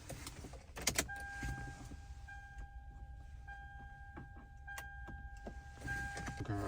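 A click, then a steady high electronic tone that holds for several seconds with a couple of brief breaks, over a low rumble.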